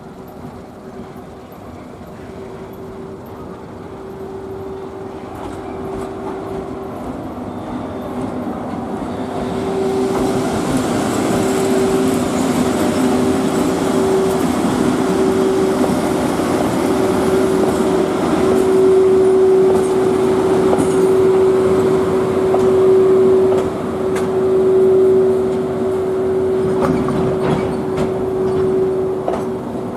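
Freight train hauled by an EF81 electric locomotive approaching and running past, its noise swelling over the first ten seconds or so and then holding, with ups and downs. A steady ringing tone sounds throughout.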